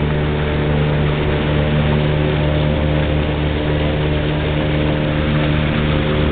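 Motorboat engine running steadily at a constant pitch, over a steady rushing hiss.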